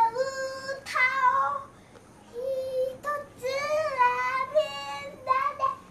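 A young child's voice singing unaccompanied, high and clear, in short held phrases with a brief pause about two seconds in.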